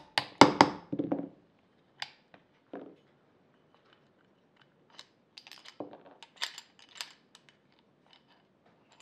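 A quick run of sharp taps from a small hammer on a steel pin punch, driving the trigger pin out of an AR-15 lower receiver. A few seconds later come light metallic clicks and rattles as the trigger assembly is worked out of the receiver.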